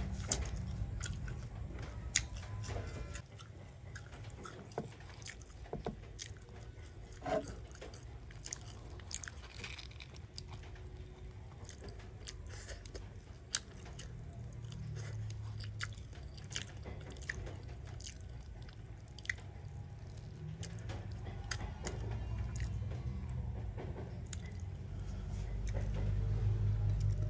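Grilled whole fish being pulled apart by hand and eaten close to the microphone: scattered crisp crackles and clicks of skin and flesh tearing, over a low steady rumble that grows louder near the end.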